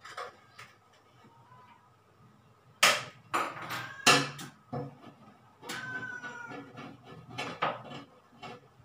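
Handling noise at a glass aquarium: a quiet stretch, then a string of sharp clicks and knocks, the loudest about three and four seconds in, as a small hand tool is worked against the glass.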